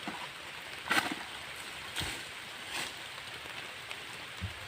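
Steady rain hiss, with a few short knocks, the loudest about a second in.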